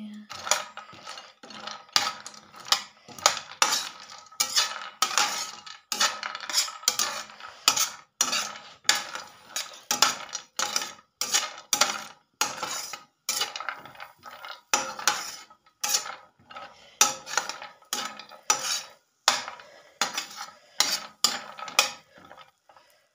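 Metal slotted spatula scraping and clattering against a stainless steel frying pan, stirring cashews, almonds and pistachios as they roast in a little oil. The strokes come about two a second, with short pauses.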